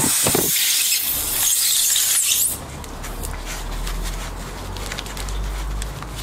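Loud hissing and rubbing as a string plug is forced into the puncture in a scooter's rear tyre with the plug insertion tool, cutting off suddenly about two and a half seconds in. Quieter scraping and small clicks follow.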